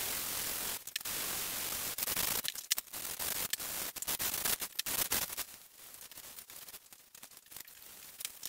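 Fine-grit sandpaper on a hand sanding block rubbing over a walnut edge-grain cutting board: the final light sanding after the grain has been raised with water. A steady hiss for the first couple of seconds breaks into shorter strokes, then turns to much fainter rubbing in the second half.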